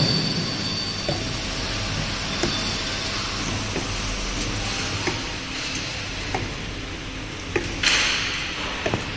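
Rotary bottle turntable running with a steady machine hum, and scattered light knocks as plastic bottles ride against its stainless steel rim and guide rails. A brief louder rush of noise comes about eight seconds in.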